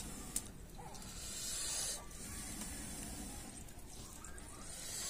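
Wood fire hissing in a stove beneath an iron griddle, the hiss swelling and fading, with one sharp click about half a second in.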